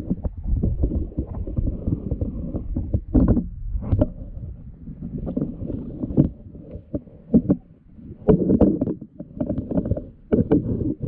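Muffled underwater noise heard through a waterproof camera housing: irregular low thumps and knocks as a freediver moves through kelp, with a few sharper knocks about three, four, eight and ten seconds in.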